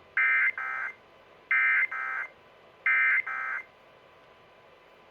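Emergency Alert System SAME digital data bursts sent three times, about 1.3 seconds apart. Each time comes as two short bursts, the second quieter than the first, over a faint radio hiss.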